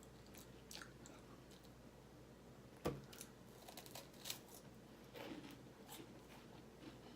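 Faint crisp crunches of a Goya pineapple wafer cookie being bitten and chewed, with the sharpest crunch about three seconds in and a run of smaller crunches after it.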